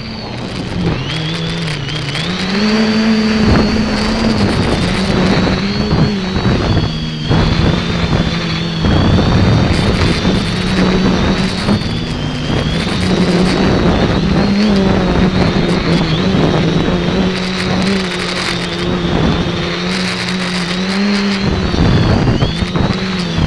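X550AIOP quadcopter's electric motors and propellers whining steadily, the pitch wavering up and down as the throttle changes in flight, over heavy wind buffeting on the onboard microphone.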